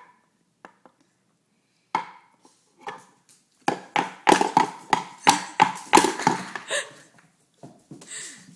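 A child's toy hammer banging on a peg-pounding toy: a single knock about two seconds in, then a quick run of about a dozen blows in the middle, and a few lighter taps near the end.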